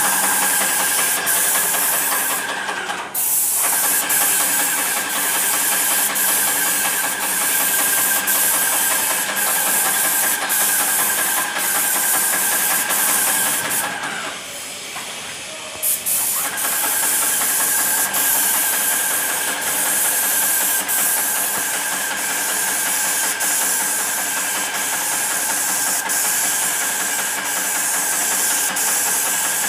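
Airless paint sprayer spraying wall paint: a steady hiss with a whine in it, cut off briefly about three seconds in and for about two seconds midway as the gun trigger is let go.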